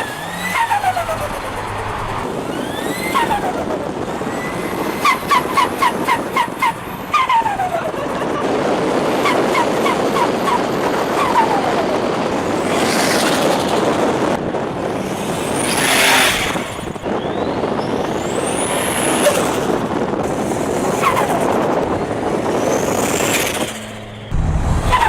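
Turbocharged car engines revving in a series of short clips: the turbo's whistle sweeps down as the throttle closes, with a rapid chattering flutter of about four or five chirps a second, and in later clips the turbo whistle rises sharply as it spools up.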